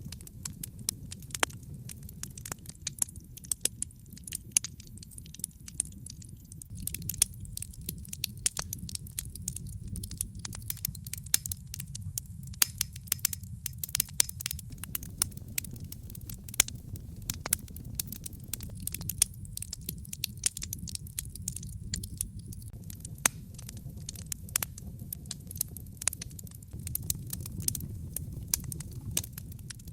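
Wood fire crackling in a fireplace: many sharp pops and snaps, irregular and close together, over a low, steady rumble of the burning fire.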